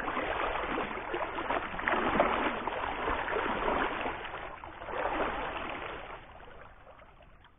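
Water splashing and gurgling close by, swelling in a few surges and dying away near the end.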